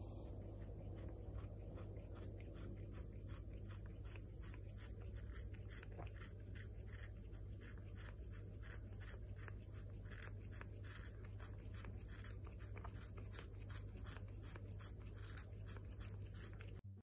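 A cat licking a strawberry held in someone's fingers: faint, wet, scratchy licks in a steady rhythm of about three to four a second.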